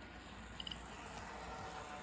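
Kato N scale F40PH locomotive running on model track: a faint, steady whir of the motor and wheels. Three quick, high-pitched beeps come close together just over half a second in.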